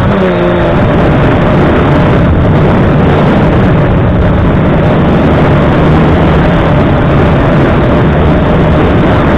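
F450 quadcopter's brushless motors and propellers buzzing steadily in flight, heard close up from the camera on board, over a dense rushing noise. The buzz changes pitch briefly near the start as the motors adjust, then holds steady.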